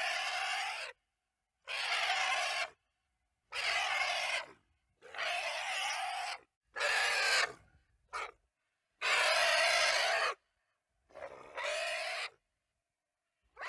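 A series of short animal calls, about eight in all, each roughly a second long with dead silence between them; one near the middle is much shorter.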